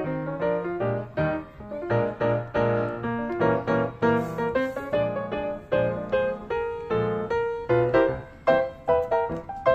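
Background piano music: a lively melody of quick, separate notes.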